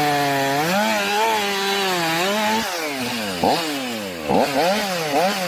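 Chainsaw engine running, then revved up and down in quick repeated blips over the second half.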